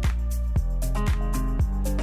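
Background music with a steady beat, a drum hit about twice a second.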